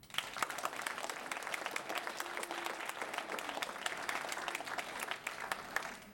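Audience applauding an award winner, many hands clapping together; it starts at once and fades away at the very end.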